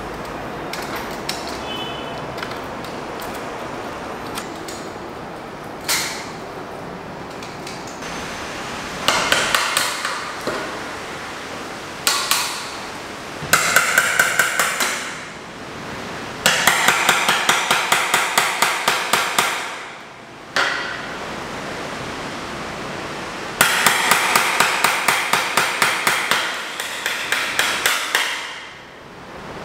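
Claw hammer striking a chisel in quick runs of blows, about four a second, with short pauses between runs, chipping bark and knots off a dead Christmas-tree trunk. Before the hammering, steady scraping of a blade stripping the bark, with a single knock about six seconds in.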